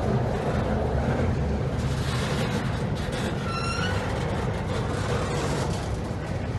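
Double-stack intermodal freight train's well cars rolling past: a steady rumble of steel wheels on the rails, with a brief high-pitched squeal about three and a half seconds in.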